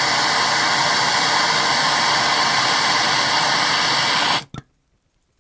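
Handheld gas torch burning with a loud, steady hissing flame as it heats a flux-coated copper joint for soldering; the flame cuts off suddenly about four seconds in, followed by a short click.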